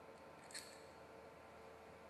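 A single light click about half a second in, as a hand riveter's nose with a blind rivet is set against a perforated metal plate. Otherwise near silence.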